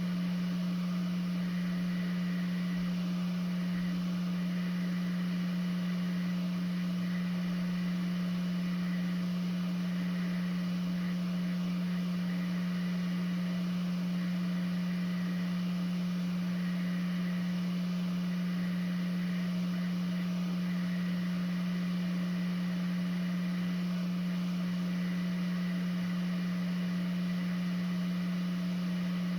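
Quick 861DW hot-air rework station blowing at airflow 70 while it heats a chip to desolder it: a steady low hum with faint hiss, unchanging throughout.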